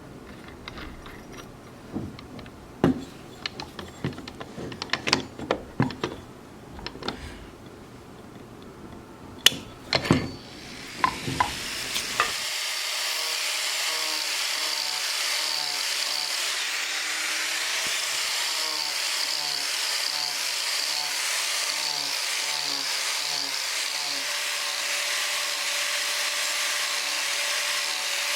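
Scattered sharp knocks and clicks of wood and tools being handled, then, about twelve seconds in, a power carving tool fitted with a carving wheel grinding steadily into applewood, a constant whine over the rasp of cutting.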